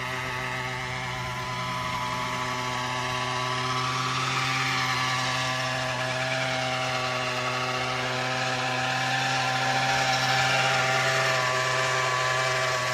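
Gas-engined 800-size Century RC helicopter in flight: a steady two-stroke engine and rotor drone, its higher tones slowly sliding down and up as the helicopter moves about.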